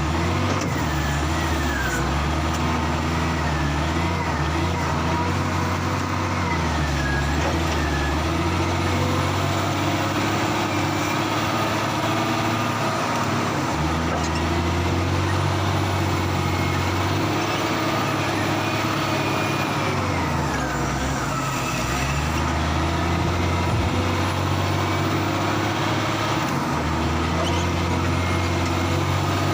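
Heavy diesel engine running throughout, its pitch going up and down several times as it revs and settles, with a higher whine that wavers and glides over it.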